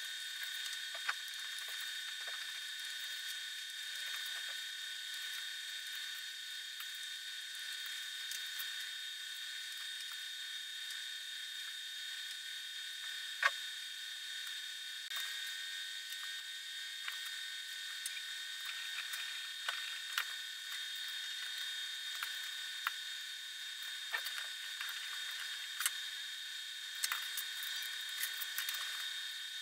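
A steady high-pitched electrical whine with hiss, with scattered faint clicks and taps from small parts being handled on the bench. One sharper click comes about halfway through.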